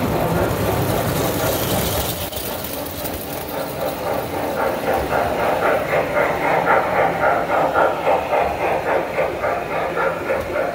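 Lionel standard-gauge tinplate toy trains running on three-rail track, a steady rumble of motors and wheels. From about four seconds in, a steam-outline locomotive with a string of freight cars passes close, its wheels setting up a rapid, rhythmic clatter over the track.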